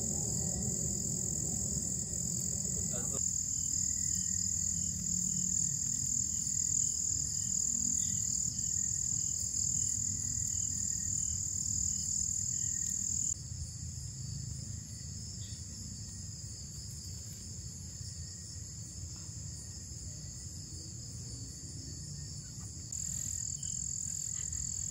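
Outdoor rural ambience: a steady high-pitched drone of insects and frogs, with a faint call repeating about twice a second for several seconds and a low rumble underneath. The drone drops abruptly in level about halfway through and comes back up near the end.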